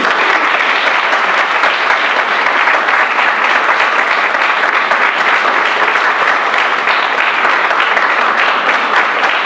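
Audience applauding steadily, a dense, even clapping that starts suddenly and holds at the same level throughout.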